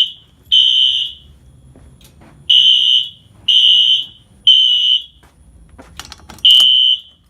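Two Wheelock horn strobes, an NS and an AS, sounding in sync in the temporal-three evacuation pattern: three half-second blasts of a high electronic horn tone, a pause of about a second and a half, then three more.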